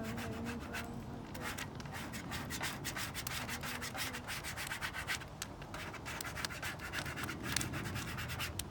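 Quick, irregular rubbing strokes as a vinyl decal stripe is smoothed down onto a car's body panel.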